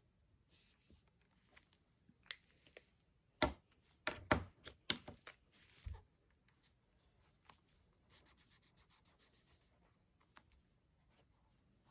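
Liquid chalk marker tips scratching and rubbing on a coated card page while colouring, faint. Between about three and six seconds in there is a cluster of sharp clicks and knocks as markers are capped, uncapped and set down. Near the end comes a quick run of short back-and-forth strokes.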